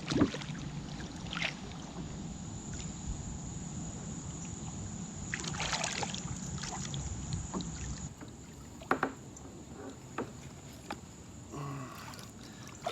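Water splashing and scattered knocks and clicks against a kayak as a hooked blue catfish is brought alongside and landed, with a cluster of splashes about five to six seconds in.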